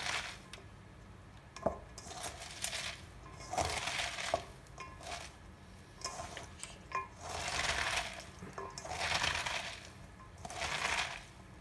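Hands kneading salted shredded cabbage in a stainless steel bowl: crunching, rustling swells every second or two as the leaves are squeezed, with a few sharp clicks against the metal bowl.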